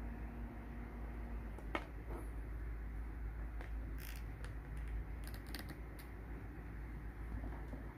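A small DC cooling fan runs with a steady hum until a USB plug is pulled out of its socket with a sharp click a little under two seconds in, and the hum stops. A few seconds later come several light clicks as the digital multimeter is handled.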